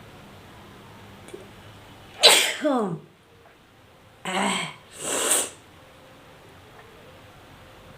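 A person sneezes once, loudly, with a voiced cry that falls in pitch, brought on by tickling the inside of the nose. About two and three seconds later come two shorter breathy bursts.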